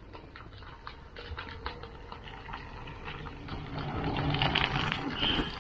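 A bicycle riding past on a gravel path, its tyres crunching, growing louder from about four seconds in.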